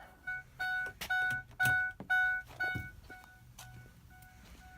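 Ford E150 van's dashboard warning chime dinging over and over at one unchanging pitch, about two dings a second, fading to fainter dings after about three seconds.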